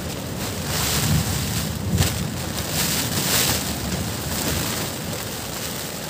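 Strong gusting wind and rain hitting a small camping tent, heard from inside: the nylon walls shake and flap as gusts push them in, with rain lashing the fabric and wind rumbling on the microphone.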